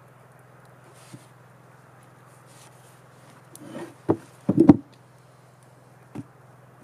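A few sharp knocks in quick succession about four seconds in, pieces of wood being handled and knocked together, with lighter single knocks before and after, over a steady low hum.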